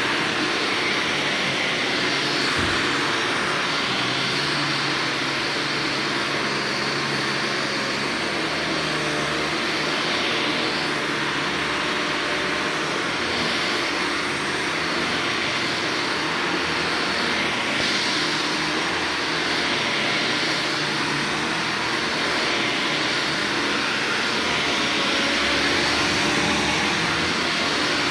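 Upright vacuum cleaner running steadily while it is pushed back and forth over carpet.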